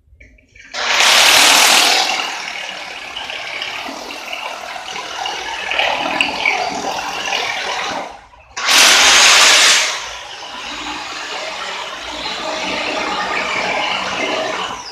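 Electric drill boring a hole into a wall, in two runs with a short stop about eight seconds in. Each run is loudest for its first second or so, then runs steadier and quieter.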